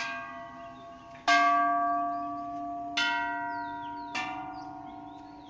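A row of hanging metal Thai temple bells struck one after another: four strikes, at the start, about a second in, about three seconds in and just past four seconds. Each rings on and slowly fades, and the strike about a second in is the loudest.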